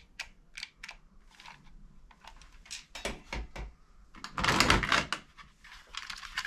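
Hard plastic toy guns clicking and clattering as they are handled and shifted about in a heaped box, with a denser, louder burst of clatter about four and a half seconds in.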